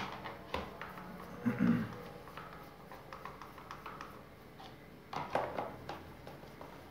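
Phillips screwdriver turning screws out of a plastic fan-heater casing: small clicks and scraping of metal on plastic, with a louder run of clicks and scraping about five seconds in.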